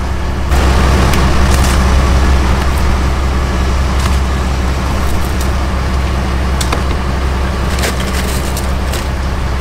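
Boat engine running steadily with a low drone that gets louder about half a second in, with scattered sharp clicks and knocks as fish and ice are handled in a cooler.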